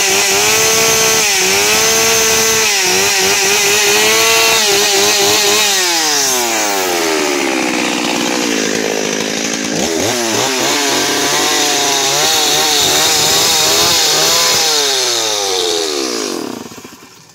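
Two-stroke chainsaw running at high revs, cutting into a wooden fence board, the engine note dipping under load. About four and a half seconds in the revs fall away, then climb again and hold. Near the end the engine winds down and stops.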